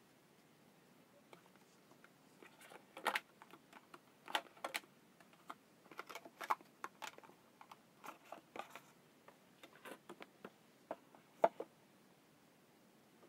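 Irregular light clicks and taps from hands handling a cardboard phone box and the phone, coming in scattered clusters, the sharpest about three and eleven seconds in.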